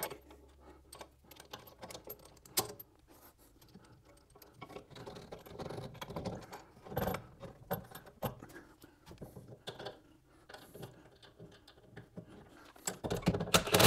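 Scattered light metallic clicks and clinks of sway bar end link hardware being handled and fitted onto a lower control arm.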